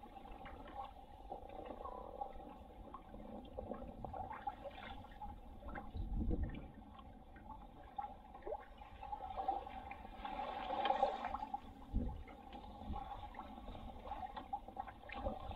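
Lake water rushing and splashing along the hull of a small sailing trimaran kayak under way, with a couple of low thuds about six and twelve seconds in.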